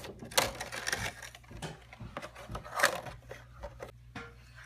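Packaging being handled and opened: a string of rustles and small clicks, loudest about half a second in and again near three seconds in, then fainter.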